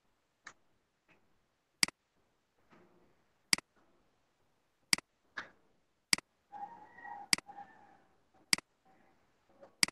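Sharp computer-mouse clicks, seven loud ones spaced a little over a second apart, with a few fainter clicks between. A quieter sound with a faint steady tone lasts about a second just past the middle.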